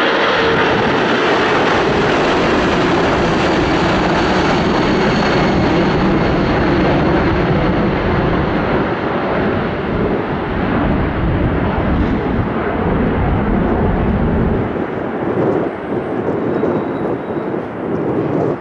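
Airbus A340-300's four CFM56 jet engines at takeoff power as the airliner climbs away, a loud steady rumble whose higher hiss gradually fades as it recedes. In the last few seconds the sound dips and wavers.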